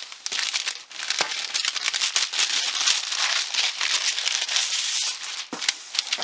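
Gift wrapping paper being ripped off a box and crumpled by hand: a dense, crackly rustling full of sharp tearing rips, busiest in the middle.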